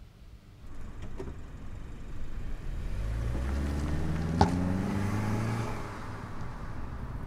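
A car engine passing by on the street, swelling and then fading over a few seconds, with one sharp click near the middle.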